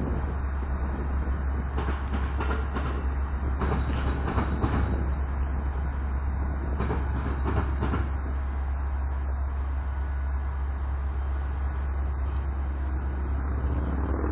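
Amtrak Lincoln Service passenger train rolling out of the station over a steady low rumble, its wheels clicking over rail joints in clusters through the first half. The clicking thins out toward the end.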